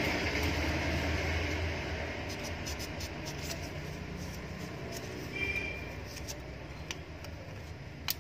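Light clicks and rustles of a copper-wire coil and slot insulation paper being handled into an electric motor's stator, over a steady low background rumble that eases after the first couple of seconds.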